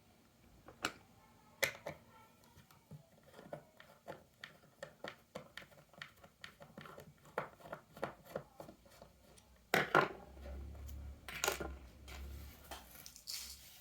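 Irregular light clicks and taps, a few a second, with two louder knocks about ten and eleven and a half seconds in.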